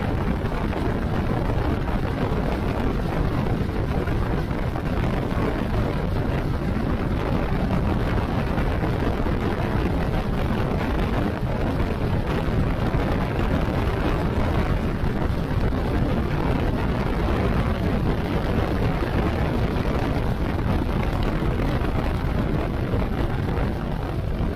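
Steady riding noise from a Hero Xpulse 200 motorcycle cruising at road speed: wind rushing over the microphone mixed with the drone of its single-cylinder engine and the tyres on the road.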